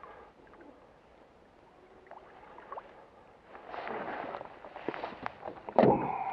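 Hooked sea trout splashing and thrashing at the surface beside a rowboat. The water is quiet at first, irregular splashes start about halfway through, and the biggest splash comes near the end.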